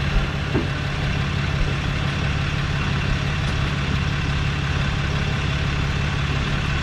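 A motor or engine running steadily, giving a constant low hum with an even level throughout.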